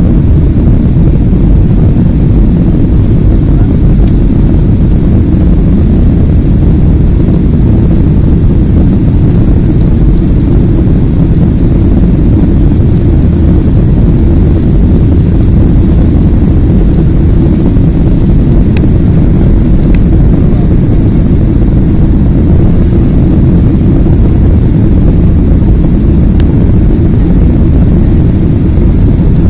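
Airliner engines and rushing air during takeoff, a loud, steady low rumble that holds without rising or falling.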